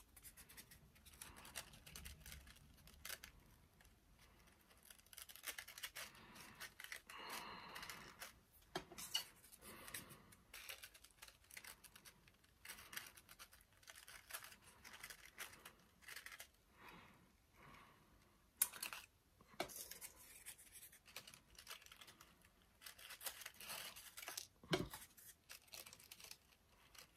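Faint rustling and crinkling of paper petals being handled, pressed and pinched onto a paper rose, with a couple of sharper taps in the second half.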